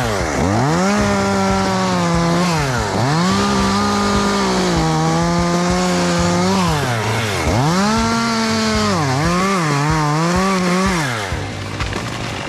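Chainsaw run at full throttle cutting through a limb, its engine dropping back briefly about five times and coming back up each time, then easing off to idle near the end.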